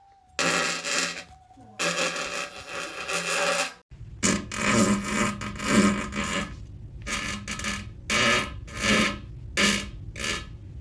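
A man farting: two long farts, then, after an abrupt cut, a run of about ten short farts coming every half second to second.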